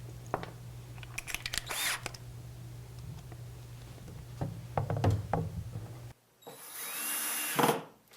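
Scattered clicks and knocks of screws and hardware being handled, then, near the end, an electric drill or cordless screw gun runs for about a second and a half. Its whine rises and then holds steady as it drives a #10 pan head screw through a hinge mounting plate into the cabinet face frame.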